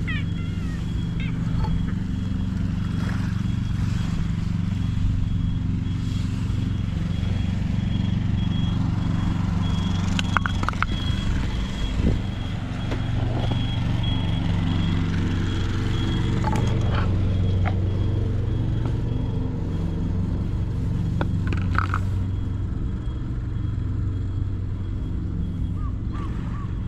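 An engine running steadily at an even speed, with a few brief knocks and clicks over it about ten, twelve and twenty-two seconds in.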